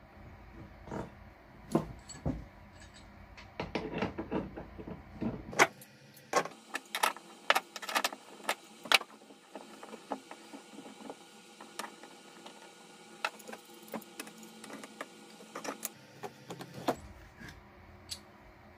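Irregular sharp clicks and knocks, thickest about six to nine seconds in, of a small metal bench vise and hand tools being handled and set down on a wooden workbench.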